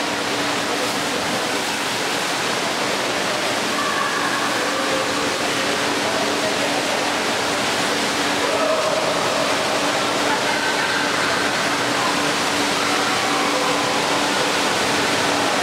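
Steady rush of running water from the water slides and pools of an indoor water park, with distant voices of swimmers mixed in and a low steady hum underneath.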